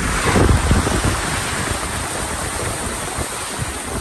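Floodwater splashing and hissing as a Toyota Fortuner drives through it, its tyres throwing up spray; the loudest surge comes in the first second.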